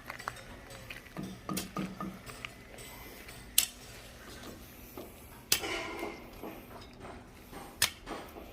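Scattered light clicks and knocks at irregular times, the sharpest about three and a half seconds in, with louder knocks a little later and near the end, over a faint low hum.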